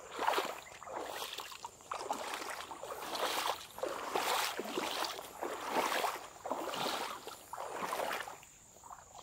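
Footsteps wading through shallow marsh water and tall wet grass: a swish and slosh with each stride, about one a second.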